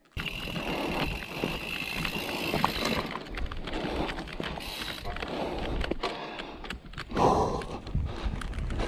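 Mountain bike riding down a dirt trail: continuous tyre and rattle noise with many small knocks, and a thin steady high whine during the first three seconds.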